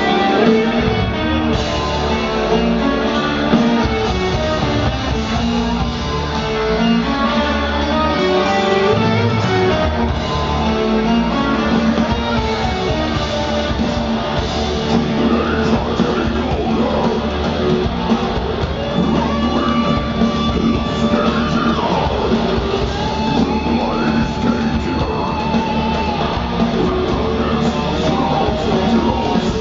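Live heavy metal band playing: electric guitars and drums at full volume, with sustained melodic notes held over the rhythm.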